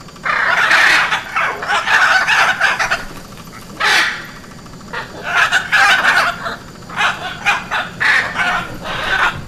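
Hyacinth macaws calling: a run of loud, harsh squawks in bouts of up to about a second, with a short sharp call about four seconds in and shorter squawks near the end.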